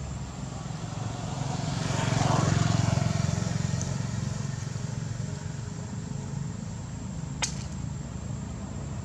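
A motor vehicle engine running, growing louder about two seconds in and then easing off, with one sharp click near the end.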